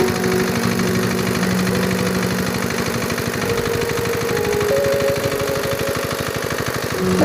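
Shuanghe Z170F 4 hp single-cylinder diesel engine running steadily, driving a small water pump, with background music over it.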